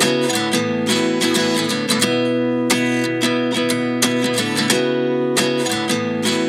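Background music: an acoustic guitar strumming chords in a steady rhythm, with no singing yet.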